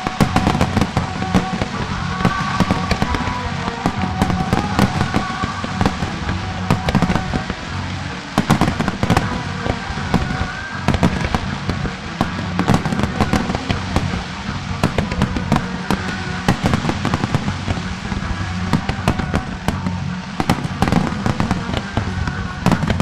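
Aerial firework shells launching and bursting in rapid, overlapping bangs that never let up. Through much of it the display's music plays faintly underneath.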